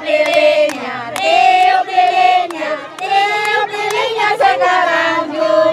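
Children and women singing an Indonesian birthday song together, with hands clapping along in sharp irregular claps.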